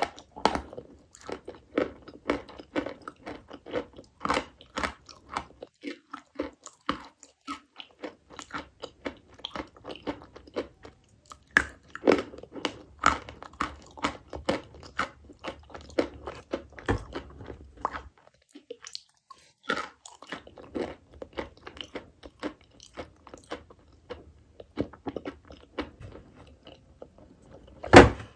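Dry chalk being bitten and chewed: a long run of crisp crunches, several a second, easing off in places, with one especially loud crunch near the end.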